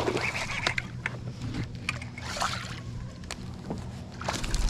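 Water splashing as a small hooked bass thrashes at the surface while it is reeled in and swung toward the boat, with scattered clicks and knocks of rod and boat handling.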